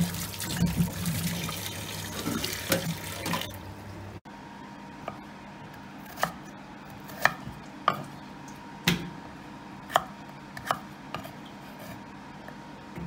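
Tap water running into a stainless steel sink as peeled potatoes are rinsed, stopping abruptly about four seconds in. Then a knife slicing through raw potatoes onto a wooden chopping board: about eight sharp knocks, roughly a second apart.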